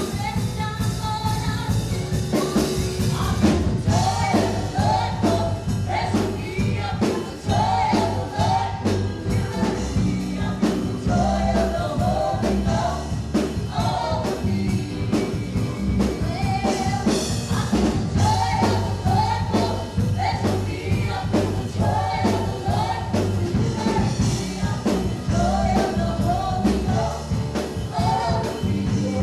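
Live gospel worship music: singing over a band with drums and bass keeping a steady beat.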